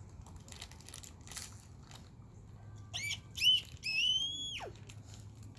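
A dog whining in high, thin notes: two short whines about three seconds in, then a longer one that drops away sharply at its end.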